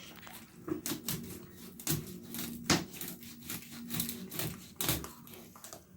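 Irregular clicks and light knocks, as of dishes and cutlery being handled at a table, with a faint steady hum underneath for part of the time.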